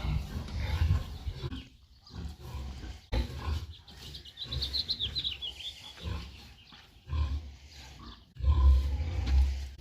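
Pig grunting in low, rough bouts, with a short run of quick high chirps about halfway through.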